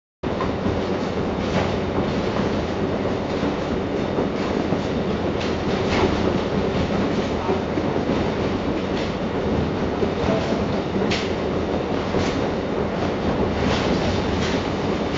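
AI-generated sound effect of a train running on rails: a steady rumble and rattle with scattered sharp wheel clacks, starting suddenly.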